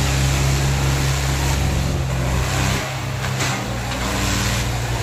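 Tractor diesel engine running loud and steady, with a noisy wash over it. The lowest part of the engine sound drops away about three seconds in.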